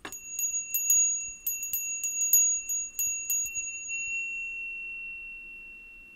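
Small bell rung with a dozen or so quick, irregular strikes over about three and a half seconds. The high ring then carries on alone and fades out.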